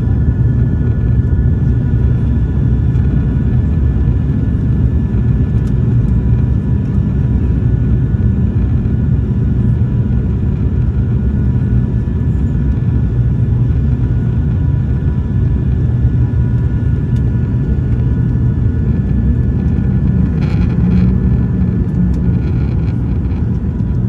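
Steady low drone of an ATR 72-600's twin turboprop engines and propellers in flight, heard from inside the cabin, with a few faint steady tones above the rumble.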